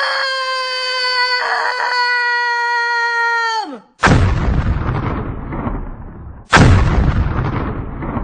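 Cartoon blender motor whining at a steady high pitch, then winding down with a quick drop in pitch after about three and a half seconds. Two heavy booms follow, each sudden and fading out slowly, one about four seconds in and one about six and a half seconds in.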